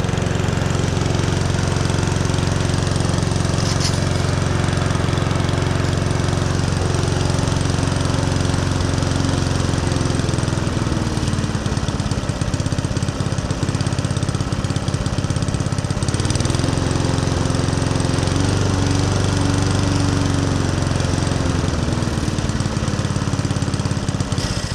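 Petrol engine of a Champion rotary lawnmower running unattended at a steady speed with its throttle clamped, on a test run after water was found in its oil. Its speed wavers a little a couple of times about halfway through.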